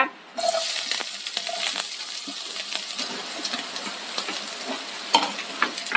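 Sliced onions dropped into hot oil in a nonstick pan, bursting into a sizzle about half a second in that slowly eases off. Light clicks and taps run through it as the onion pieces are scraped off a plate with a spatula.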